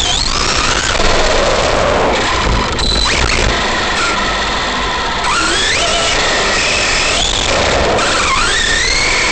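Electric motor of an Arrma Big Rock V3 RC monster truck, heard up close from a camera mounted on the truck: a high whine that rises in pitch several times as the truck accelerates, over a steady rush of tyres rolling on pavement.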